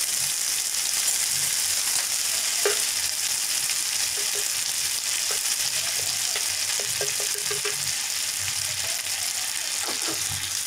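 Butter melting and sizzling in a small long-handled tempering pan over a gas flame, a steady high hiss with a few scattered small pops. It is the butter being heated for a tempering (chhonk).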